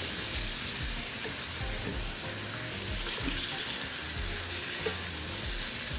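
Chicken and masala frying in a non-stick pan: a steady sizzle.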